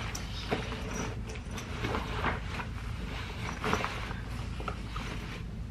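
Fabric rustling and a few light knocks as a drawstring backpack is slung over the shoulder and handled, over a steady low room hum.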